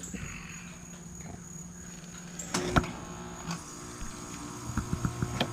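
Steady hum of an air conditioner unit running, its pitch dropping slightly a little past halfway, with a sharp knock a little under three seconds in and a few lighter clicks near the end.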